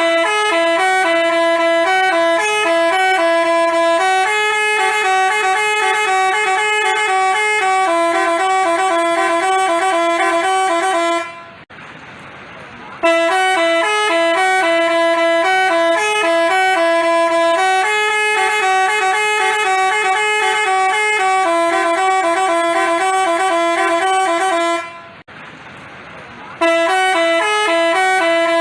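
Multi-tone Basuri 'telolet' bus horn playing a tune of quick stepping notes. It breaks off twice for about a second and a half, then starts the tune again.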